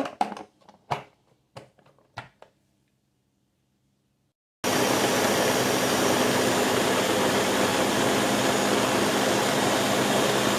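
A few light clicks and knocks, then, about four and a half seconds in, a countertop blender comes in suddenly at full speed and runs steadily, puréeing fruit and syrup for an ice-cream base.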